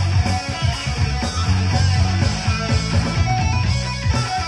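Live band playing an instrumental passage: a driving bass line and steady beat with guitar, no singing.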